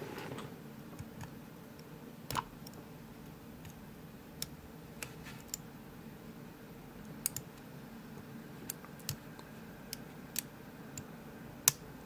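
Lock pick clicking against the pins of a brass pin-tumbler padlock during single-pin picking: a dozen or so small, sharp clicks at irregular intervals, the loudest near the end, as pins are lifted and set under tension from a spring-loaded turning tool.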